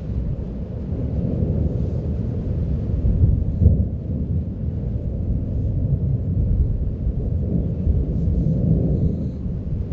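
Mount Etna's lava fountain erupting: a continuous deep rumbling roar that swells to a louder moment about four seconds in.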